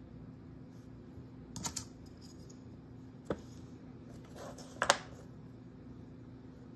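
A few light, sharp taps and clicks as clay and a needle tool are handled against a hard work board while a clay coil is shaped and cut. There are three of them, and the loudest comes a little before the five-second mark.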